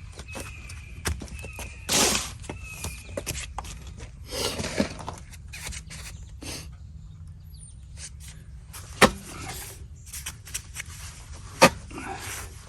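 Scattered knocks, clicks and scuffs of a removed car wheel and tire being handled and turned while the tread is checked for a nail, with two sharp knocks late on.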